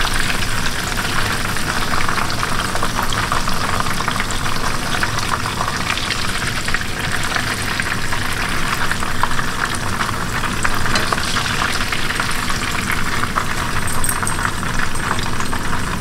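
Panko-breaded chicken breast pieces deep-frying in hot oil in a pan: a steady sizzle full of small crackling pops.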